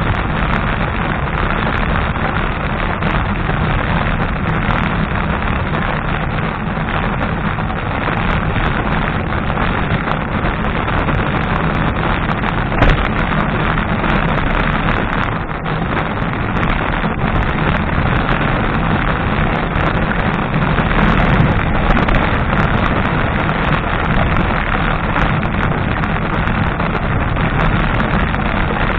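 Steady wind and road rumble on the microphone of a bicycle-mounted camera while riding, with one sharp knock about 13 seconds in.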